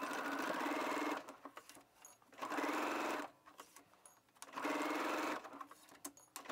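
Electric sewing machine stitching a seam in three short runs of about a second each, stopping in between, with a few light clicks in the pauses.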